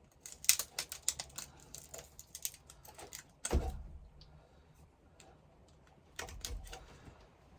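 Small sharp clicks and taps from hands working on the headlamp switch wiring. A single heavier thump comes about three and a half seconds in, and another short cluster of clicks comes near the end.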